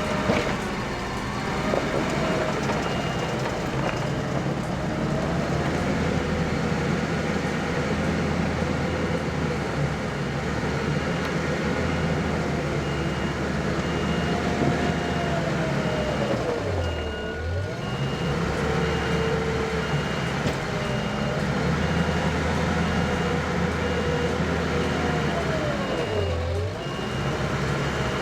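Skid steer engine running hard while grading dirt, its pitch dipping and recovering twice. A reversing alarm beeps steadily from about a third of the way in.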